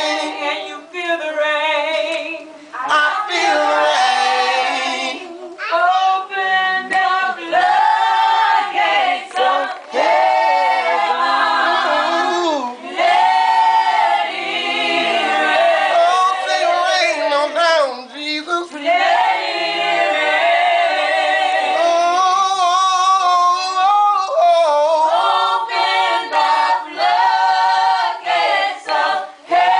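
A small group of men and women singing a gospel song together in sustained, drawn-out phrases, with brief breaks for breath.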